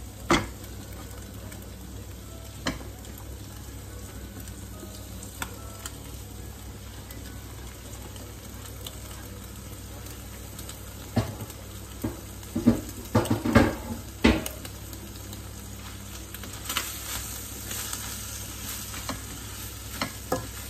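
Chopped choy sum and Chinese cabbage sizzling in a hot wok as they are stirred and fried. Sharp knocks and scrapes against the pan break in now and then, most densely a little past halfway.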